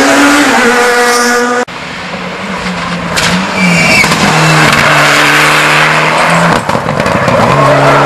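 Rally car engines revving hard through gear changes as the cars pass at speed. About a second and a half in, the sound cuts abruptly from one car to another. Near the end there is a short run of sharp crackles.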